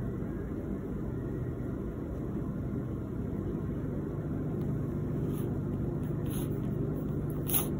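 Steady low background rumble with a faint hum, and a brief click near the end.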